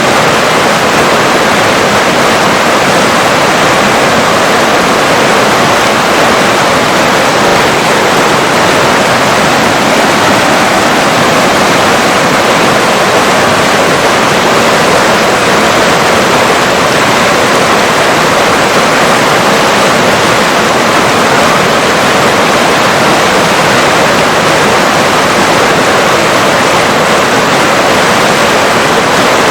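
A river's water rushing in a loud, steady, unbroken hiss.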